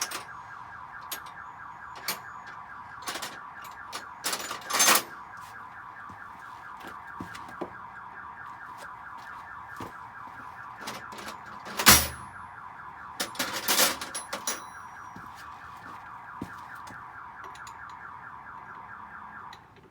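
A steady, rapidly pulsing electronic alarm-like tone that cuts off near the end, over scattered clicks and knocks of hand work, with a loud knock about twelve seconds in and a cluster of them a couple of seconds later.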